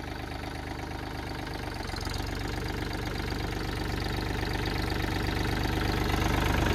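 Mahindra Oja 2127 compact tractor's three-cylinder diesel engine running, getting steadily louder.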